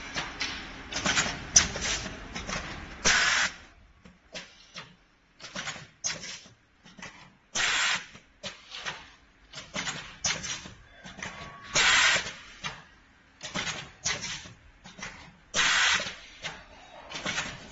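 Pneumatic cylinders of an automatic HDMI cable cutting, stripping and soldering machine actuating, with short hisses of exhausting air about every four seconds. Between them come clicks and light rattles of cables being handled in the machine's clamps.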